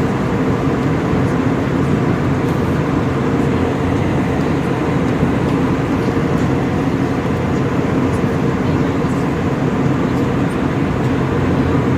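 Steady low rumble of an airplane's engines and rushing air, heard inside the passenger cabin.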